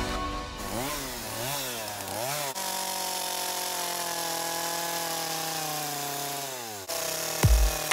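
Two-stroke gas chainsaw revved up and down three times, then held at high speed for about four seconds while cutting into the top of a log. Its pitch sags before it cuts off suddenly, and music with a heavy beat comes in near the end.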